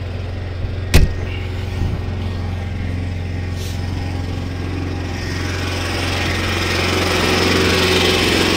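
Small gasoline engine on a hybrid golf cart running steadily, turning the alternator that charges the cart and powers a camper running its air conditioner; it grows louder over the last few seconds. A sharp click about a second in.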